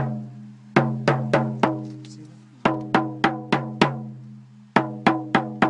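A small drum struck in quick runs of four or five beats, with a pause of about a second between runs. Each beat leaves a low, pitched ring.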